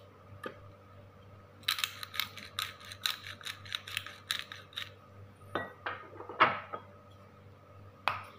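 Black pepper grinder being twisted over a bowl, a quick run of ratcheting clicks at about five a second for around three seconds. Then come a few short scraping sounds and a single knock near the end.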